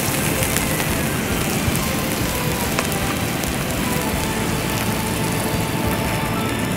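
Skewered meat sizzling steadily on a wire grill over an open fire, a dense rain-like hiss, with a few sharp crackles from the flames.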